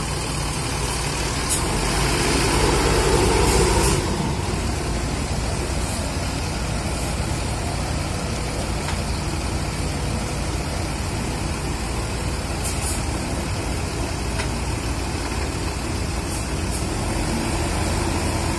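Rear-engined coach's diesel engine idling steadily. About two seconds in a louder rush of noise swells up and cuts off sharply two seconds later.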